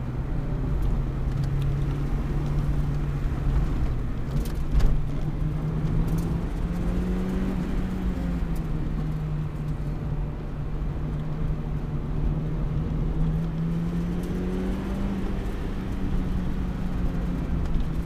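Car engine and tyre noise heard from inside the cabin while driving, the engine note rising and falling a little with speed. A single brief knock sounds about five seconds in.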